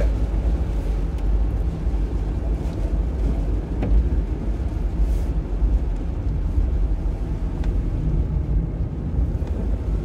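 A car driving on a wet road, heard from inside the cabin: a steady low rumble of engine and road noise.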